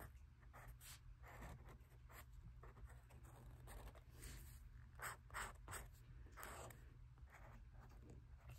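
Fine-tip marker drawing line work on sketchbook paper: faint, short, irregular scratching strokes, a few louder ones about five seconds in.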